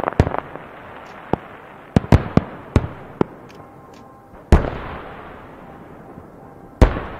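Fireworks display: aerial shells bursting in a quick run of sharp bangs, then two heavier booms a little over two seconds apart, each followed by a long rolling rumble.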